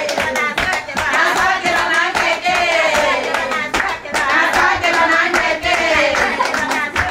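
People singing with steady rhythmic hand clapping.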